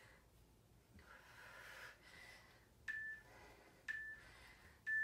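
Interval timer counting down the last seconds of an exercise interval with three short beeps at the same pitch, one a second, starting about three seconds in.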